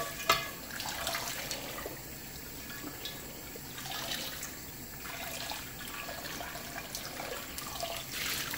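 Hot water from a sink faucet running and splashing into a cast iron skillet as it is rinsed, with water pouring off the tilted pan into the sink near the end. One sharp knock sounds just after the start.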